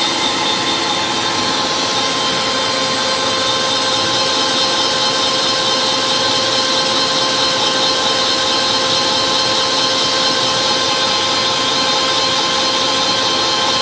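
Moore 450 CP jig grinder's high-speed grinding spindle running steadily at a very slow feed: an even hiss with several steady whining tones.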